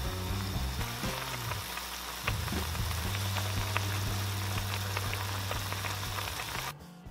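Ramyeon noodles boiling hard in broth in a pot: a steady bubbling hiss with many tiny pops, which cuts off suddenly near the end.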